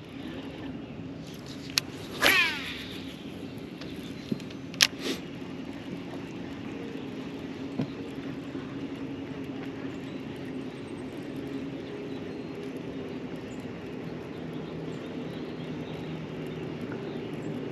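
A bass boat's electric trolling motor humming steadily as the boat creeps along the bank. About two seconds in comes a brief whir falling in pitch, and a sharp click follows a few seconds later.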